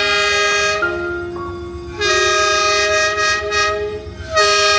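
Diesel locomotive's horn sounding in long blasts, its pitch stepping between several notes. The blasts are loudest about two seconds in and again near the end.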